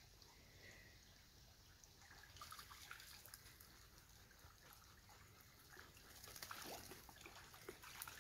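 Faint water sounds of dogs wading in a shallow creek: soft splashes and trickles, a little busier near the end.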